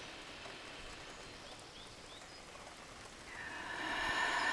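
Steady rain ambience with a few faint bird chirps partway through. In the last second or so a soft rising swell builds over the rain.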